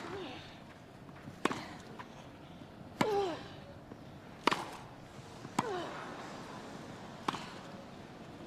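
Tennis rally: racquets striking the ball back and forth, six sharp pops about every second and a half, several followed by a short vocal exhale that falls in pitch from the player who hit.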